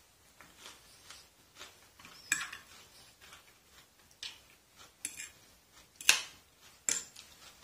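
A fork clinking and scraping against a plate in irregular taps, the sharpest about two seconds and six seconds in.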